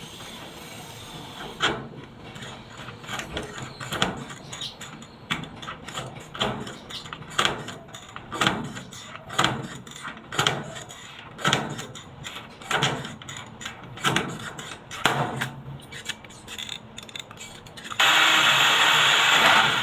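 Repeated hand-tool strokes on a washing machine's metal body, about one a second. Near the end a loud steady rushing noise starts suddenly.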